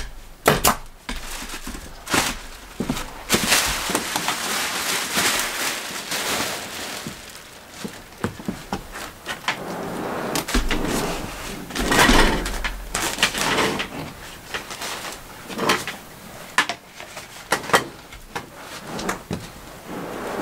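Insulation batts being handled and pushed between wooden roof rafters: rustling and scraping with scattered sharp knocks and clicks.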